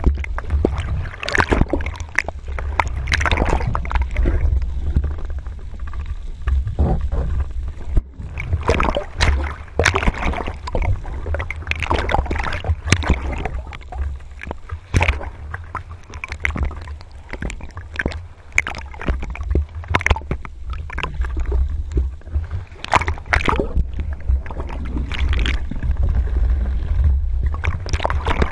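Muffled underwater sound picked up through a camera housing: a steady deep rumble of water moving past, with irregular gurgles and crackling bubbles as a freediver swims with the speargun just under the surface.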